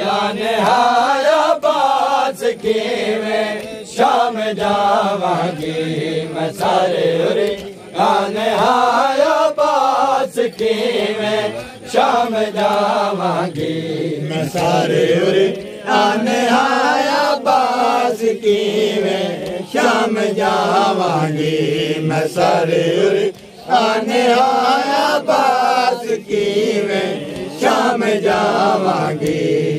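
Men chanting a noha, a Shia lament for Muharram, in rising and falling sung phrases, with frequent sharp slaps of hands on chests (matam) keeping time.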